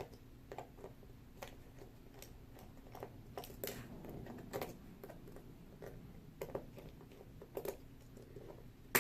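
Scattered light clicks and taps of hand work on a Yale & Towne safe deposit box lock while its cam is being taken off, some in quick pairs, with a faint steady hum underneath.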